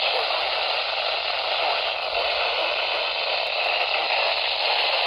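Steady hiss of radio static from a weather radio receiver, with the broadcast reading drowned out.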